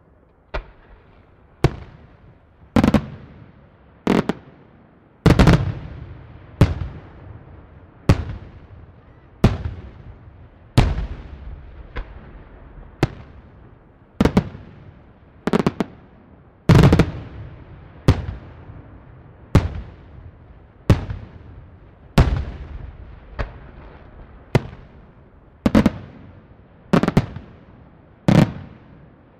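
Aerial firework shells bursting in a steady sequence, a sharp bang about every second and a quarter, each trailing off in a rolling echo.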